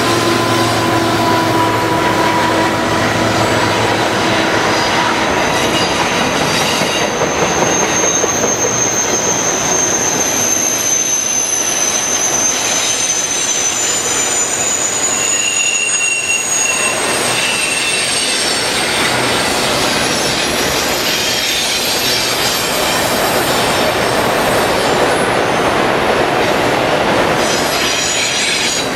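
Freight train's autorack cars rolling past close by: a steady loud rumble and rattle of steel wheels on rail. A high-pitched wheel squeal comes and goes, strongest through the middle.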